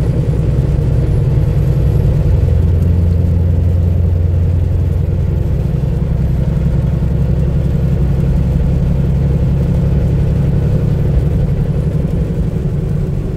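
Steady low drone of a semi-truck's diesel engine and road noise at highway speed, heard inside the cab.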